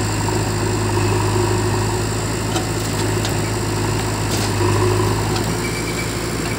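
Diesel engines of a Powertrac 439 Plus tractor and a JCB 3DX backhoe loader running steadily at idle. A few faint ticks sound in the middle as the backhoe bucket tips soil into the tractor's trailer.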